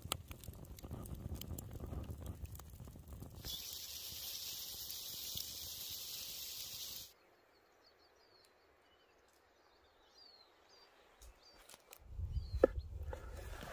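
Campfire crackling under skewered peppers and eggplants, then a loud steady hiss from the fire and roasting vegetables that stops suddenly midway. Near quiet follows with faint bird chirps, and near the end a knife strikes a wooden cutting board once amid handling noise.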